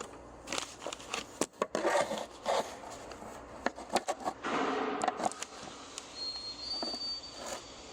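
Metal tool clicks and scrapes as a T60 Torx wrench is fitted to the BMW N55's drive-belt tensioner to take tension off the belt, with a busy run of clicks about two seconds in and a longer scraping stretch around the middle.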